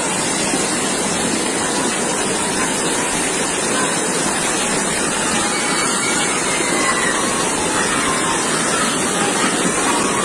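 Muddy floodwater rushing down a narrow street as a fast torrent: a steady, unbroken rush of water.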